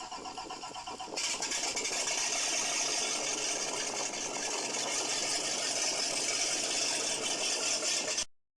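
Duramax diesel truck engine running just after starting, with a rattling idle. About a second in, a louder steady hiss comes in over it, and the sound cuts off abruptly near the end.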